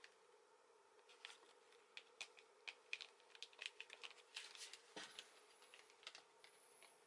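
Faint rustling and light ticks of hands handling tissue paper, scattered through a low steady room hum.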